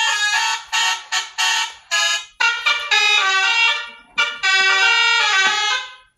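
Telolet basuri horn tune played by a small sound module: a run of bright, stepping horn-like tones in short melodic phrases, broken by brief pauses about two seconds in and again about four seconds in.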